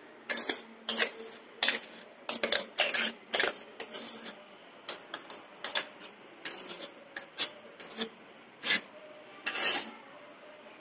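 A metal spoon scraping thick blended paste out of a stainless-steel mixer-grinder jar into a steel pot, in short, irregular rasping strokes with light clinks of steel on steel.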